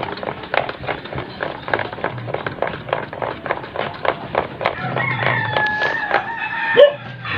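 Metal utensil clicking against a bowl at about four to five strokes a second while a sardine-and-egg batter is stirred. About five seconds in, a rooster crows once, in one long call.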